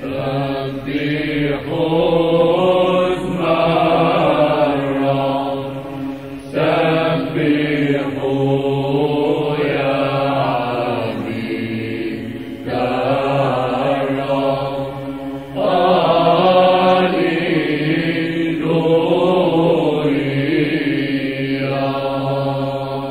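Byzantine church chant in Arabic from the Orthodox Christmas Orthros service, sung by male chanters in flowing melodic phrases over a steady held drone (ison). The phrases change about a quarter, half and two-thirds of the way through.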